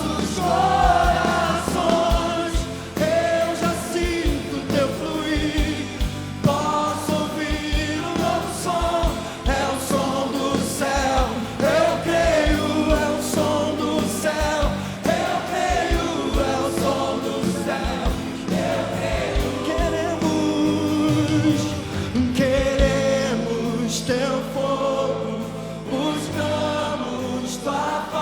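Live gospel worship music: a band with bass and drums playing under sung voices, held at a steady level throughout.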